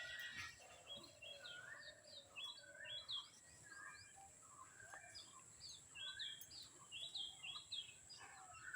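Small birds chirping, many short quick calls overlapping, with a steady thin high-pitched whine underneath.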